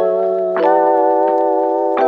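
Background music: sustained keyboard chords, changing chord about half a second in.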